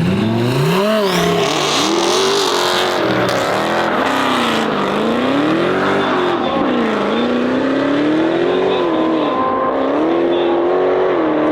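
Twin-turbo Audi R8 5.2-litre V10 under hard acceleration: the engine note jumps up from a low steady idle and then climbs and drops again several times, the pitch falling quickly at each drop.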